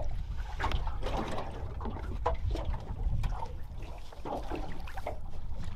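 Water lapping and slapping against an aluminium boat hull, with wind rumbling on the microphone and a scattering of light knocks and taps.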